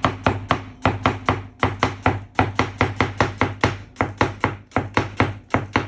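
Chinese cleaver slicing half a red onion on a plastic cutting board: a steady, even run of quick chops, about five a second.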